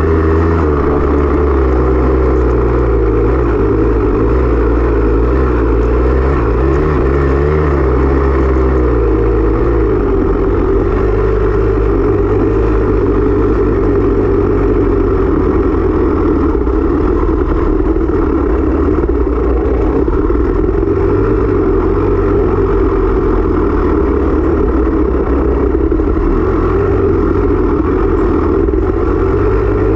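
Off-road racing motorcycle engine running under load. Its pitch rises and falls with throttle changes during the first several seconds, then holds fairly steady at high revs.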